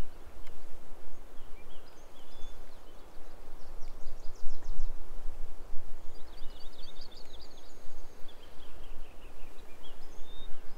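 Wind rumbling and buffeting on the microphone, with songbirds singing short, high trilling phrases several times over it.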